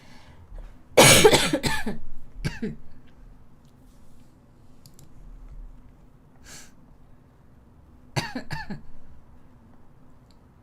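A young woman coughing. A loud fit of several coughs comes about a second in, with one more just after. A shorter run of coughs follows near the end. It is a lingering cough that is not settling, and she says it got worse after painting.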